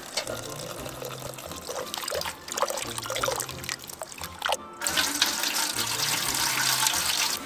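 Water running from a water jug's spigot into a cast-iron Dutch oven while hands swish and rinse the food pieces inside. About five seconds in, the water is tipped out of the pot into a bucket, a louder splashing pour.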